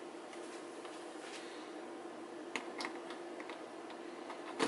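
A few faint clicks and taps of a BNC coaxial cable being handled and pushed onto an HP 5350B frequency counter's input connector, with a sharper click near the end as it seats. A faint steady hum runs underneath.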